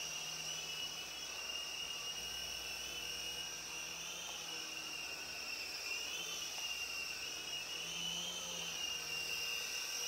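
Sky Rover Vigilante toy RC helicopter in flight: the electric motor and rotors make a steady high-pitched whine that wavers slightly in pitch as the throttle and manoeuvres change.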